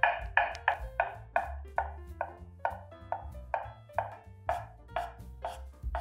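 A knife chopping on a cutting board, about three slightly uneven strokes a second, over background music.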